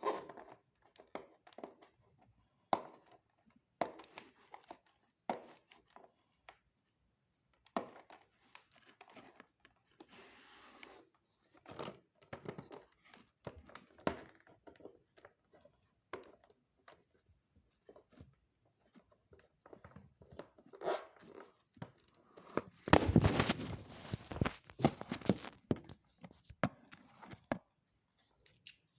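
Packaging of a model airliner being unboxed by hand: scattered crinkling, tearing and small taps and clicks. A louder, denser stretch of crinkling and rustling comes about three quarters of the way through.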